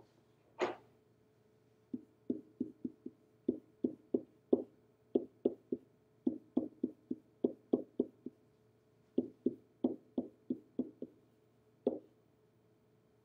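Pen tip tapping and knocking on the hard surface of an interactive whiteboard while chemical symbols are written on it: a quick, irregular run of light taps, about two to three a second, with a brief pause near the end and one sharper click about half a second in.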